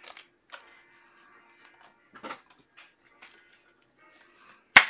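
Soft handling noises of trading cards and card packs on a table, a few faint scattered ticks and rustles, with one sharp click near the end.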